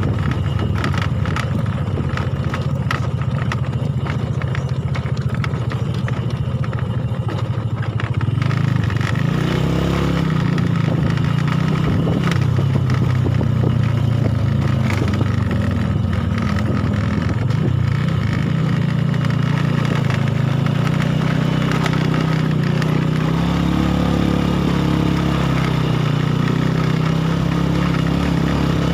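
Small single-cylinder four-stroke underbone motorcycle engine running while riding a rough dirt track, with knocks and rattles over the bumps in the first third. About a third of the way in the engine note grows louder, then rises and falls with the throttle.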